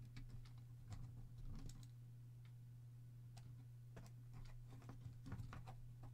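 Faint, scattered small clicks and taps of a plastic syringe being handled and pressed into the slot of a 3D-printed PLA dispenser body, over a steady low hum.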